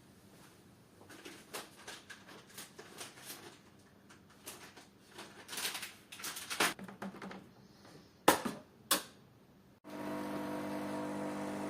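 Irregular scraping strokes on painted wood, with two sharp knocks about eight seconds in. Near the end the sound switches abruptly to a steady electric power-tool motor hum.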